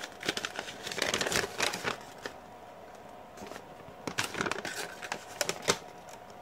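A folded paper instruction manual rustling and crinkling as it is handled and unfolded, in two spells with a quieter lull of about two seconds between.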